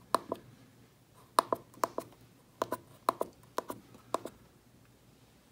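Keypad buttons on a RigExpert AA-30 antenna analyzer being pressed to enter a frequency: a series of short clicks, mostly in pairs, spread through the first four seconds or so.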